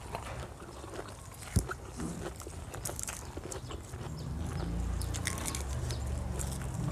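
Close-up chewing and biting of crunchy raw vegetables, with many small crisp crunches and a sharp click about a second and a half in. A low rumble builds in the last couple of seconds.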